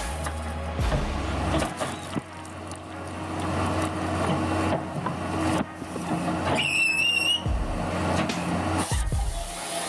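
Heavy machinery running, with several knocks and a brief wavering high-pitched squeal about seven seconds in.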